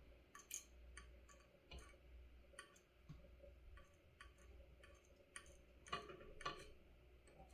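Near silence with faint, irregular light clicks and taps from small hand tools working on a small circuit board, over a steady low hum.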